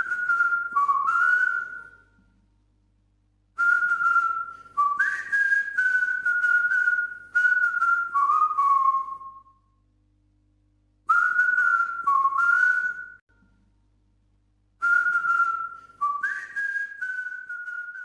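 A whistled tune in four short phrases of held notes, each stepping up and down between a few pitches, with pauses of a second or two between phrases.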